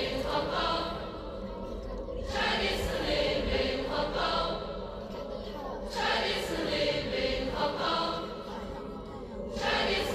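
Layered voices chanting a short phrase in unison, the same phrase coming round again about every four seconds.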